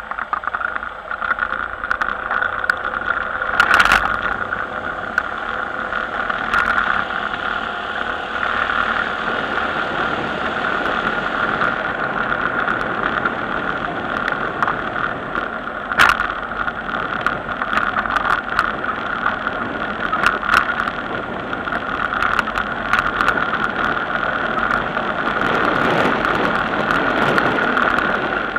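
A vehicle running steadily along a rough, narrow road, with scattered clicks and knocks as it goes over bumps.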